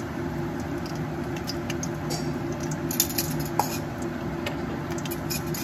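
Dried chillies and garlic cloves frying in oil in a wok, giving off scattered crackles and pops. A steady low hum runs underneath.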